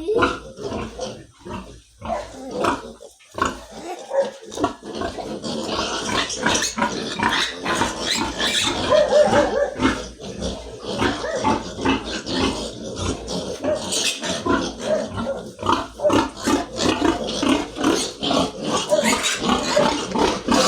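Young piglets squealing and grunting without a break while being handled for multivitamin injections, the squeals growing louder and denser about five seconds in.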